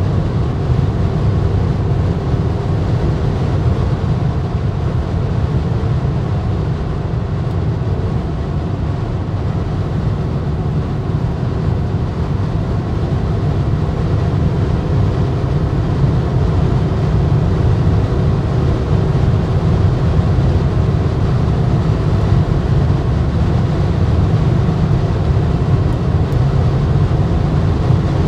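Steady in-cabin road and wind noise of a BMW X6 xDrive40d cruising at about 190 km/h. A deep tyre and wind rumble sits under a faint engine drone, and it grows a little louder in the second half.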